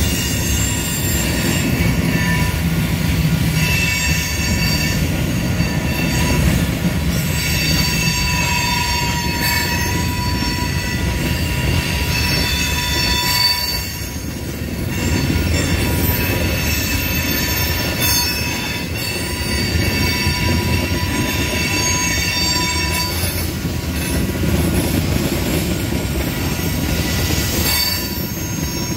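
Freight cars of a BNSF mixed freight train rolling past at a grade crossing: a continuous low rumble of wheels on rail with high-pitched wheel squeal coming and going. A brief dip in loudness comes about halfway through.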